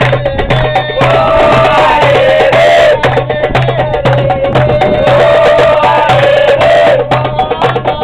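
Loud dance music with fast, sharp percussion strokes and a low bass note pulsing about twice a second. A wavering melody line swells about a second in and again about five seconds in.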